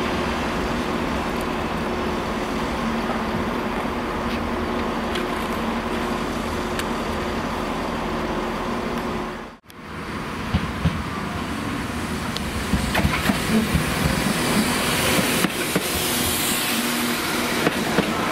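Freight train of covered steel-coil wagons rolling past, a steady rumble with a low hum. After a sudden cut, a Transport for Wales Class 197 diesel unit runs into the platform, its wheels clacking over the rail joints and points.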